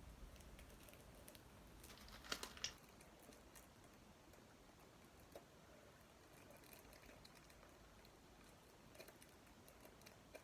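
Near silence with faint handling noise from the packaging of the photos: a short cluster of crinkly clicks about two seconds in, then scattered soft clicks.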